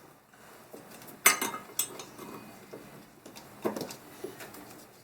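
Hand tools clinking and clattering against each other, several sharp metallic clinks, the loudest about a second in, as sockets and wrenches are handled.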